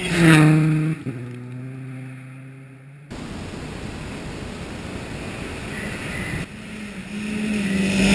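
Subaru WRX STI rally car's turbocharged flat-four passing close on a gravel stage, its engine note dropping in pitch about a second in as it goes by and fading. Then a Ford Fiesta rally car approaching over the gravel with a steady hiss of tyres and stones, its engine growing louder near the end.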